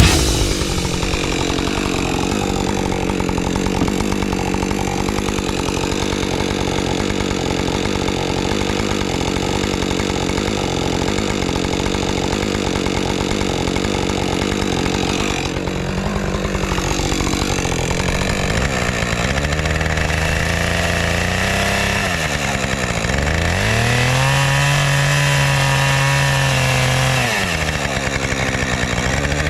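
Two-stroke Husqvarna chainsaw running at high revs, cutting into a log. In the last third the engine note drops and climbs back several times, as the throttle eases off and opens again or the chain loads up in the wood.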